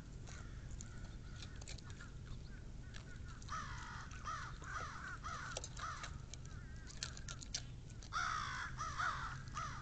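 Crows cawing in quick runs of harsh caws, one run about three and a half seconds in and a louder one about eight seconds in; the crows are agitated at a red fox eating their food. Between the runs come a few sharp clicks as the fox eats potato chips from a metal bowl.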